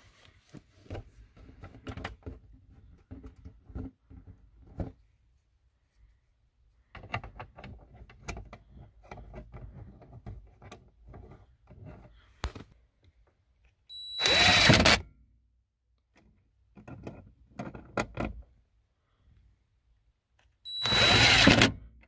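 Cordless power driver running the bolts of a plastic under-dash panel in two bursts of about a second each, one about two-thirds of the way through and one just before the end, each starting with a brief high whine. Quieter clicks and rattles of plastic trim being handled come before them.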